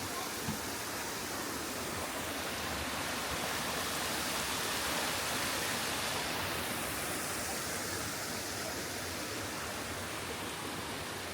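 Steady rushing of a small spring-fed waterfall, water cascading continuously, swelling slightly in the middle and cutting off suddenly at the end.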